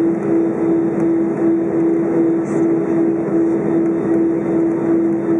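Cabin noise inside an Airbus A320 taxiing on its engines: a steady hum with a droning tone that pulses about four times a second.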